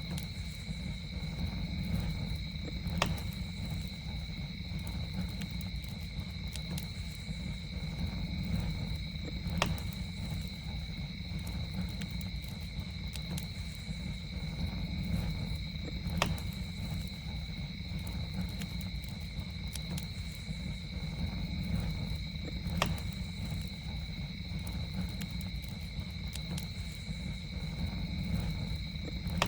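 Campfire burning with a steady low rumble and sharp crackling pops about every six to seven seconds, over a constant high-pitched trill of night insects.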